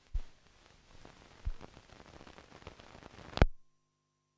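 Crackling static hiss with three sharp pops, the last and loudest about three and a half seconds in, after which it cuts off suddenly, leaving only a faint hum.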